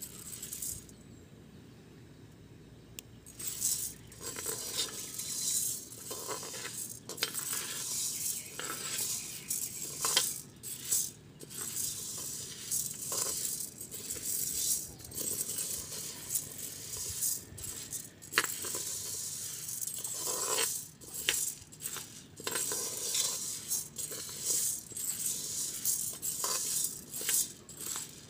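Dry mung beans scraping and clinking against an aluminium pot as a metal ladle stirs them while they toast, with a short lull near the start.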